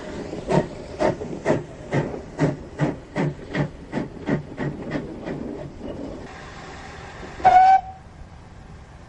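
A passing diesel train's wheels clicking over rail joints, a steady clickety-clack about twice a second that fades away. Near the end comes a single short, loud whistle toot. The audio is an old cassette recording.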